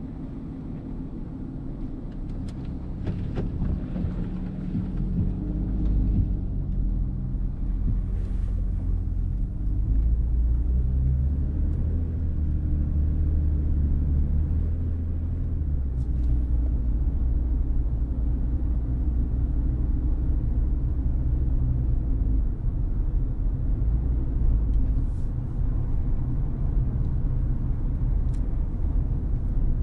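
Low, steady rumble of a car driving along a street, engine and road noise, growing louder over the first few seconds.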